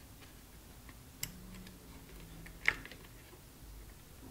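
Faint small clicks and taps of soldering work at a tube socket's pins, the iron and tools touching metal, with one sharper click a little past halfway.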